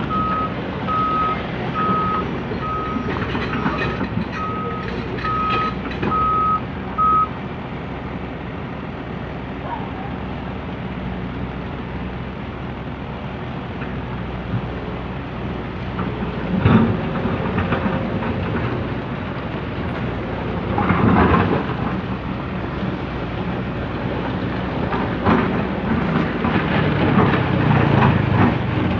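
Komatsu PC200CE hydraulic excavator running, with a warning alarm beeping about eight times at an even pace over the first several seconds. Later the machine noise swells louder a few times.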